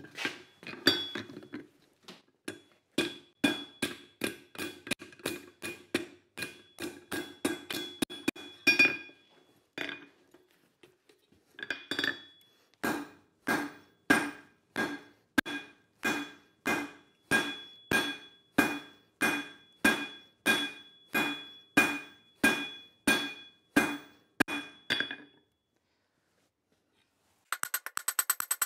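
Hand hammer blows on red-hot leaf spring steel on an anvil, each blow ringing with the anvil's tones. A quick run of blows comes first, then after a short pause a steadier, slower run. Near the end, after a moment of quiet, a fast rattling begins.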